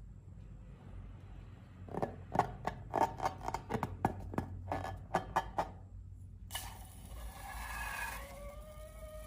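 Slime-filled rubber balloons being handled: a quick run of sharp crackling clicks for a few seconds, then a squeaky rubbing with wavering pitches in the second half.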